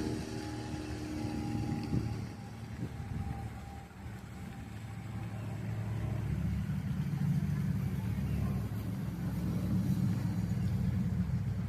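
A vehicle engine running, a low rumble that grows louder about halfway through.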